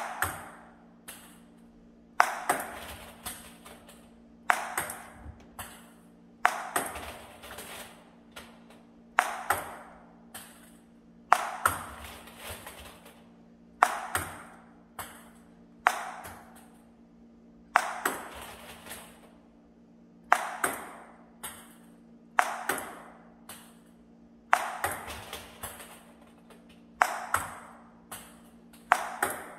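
Table tennis ball struck with a forehand about every two seconds, each sharp hit followed by the ball's lighter bounces dying away. A steady low hum runs underneath.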